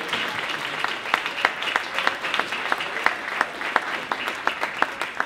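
Audience applauding, a dense patter of hand claps with a few sharper single claps standing out.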